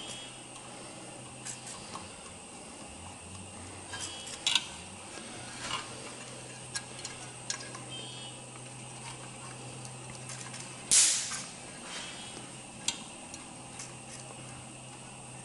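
Scattered light clicks and taps of small tools on plastic and metal parts being handled, with one brief, louder rush of noise about eleven seconds in. A steady low hum runs underneath.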